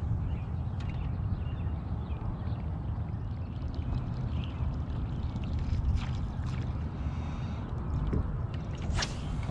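Water lapping and gurgling against a boat hull over a steady low rumble, with a few faint ticks and one sharp click about nine seconds in.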